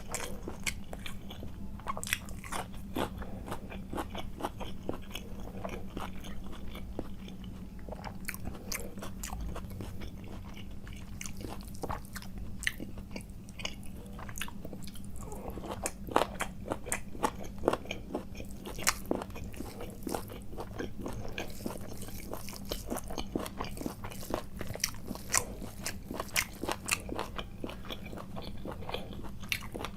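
Close-miked eating: a person biting and chewing food, with many sharp, irregular mouth clicks and crunches over a steady low hum.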